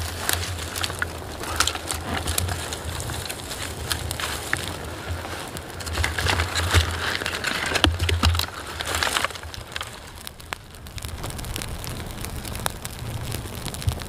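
Small wood fire of shavings and dry kindling sticks crackling, with frequent sharp pops. A low rumble comes and goes underneath.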